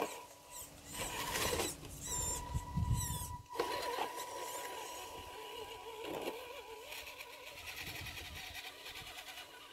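The electric motor and gearbox of an Axial SCX10 II RC rock crawler whining as it crawls up rocky ground, the pitch wavering with the throttle. Short bursts of rustling or scraping in the first few seconds.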